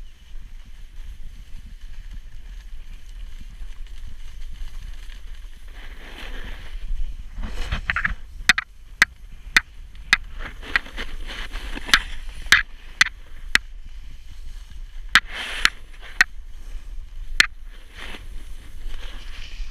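Snowboard sliding down a groomed slope: a steady low rumble with wind on the microphone, and hissing scrapes as the edge digs into the snow in turns. From about eight seconds in there is a run of sharp clicks, roughly two a second, with a gap near the middle.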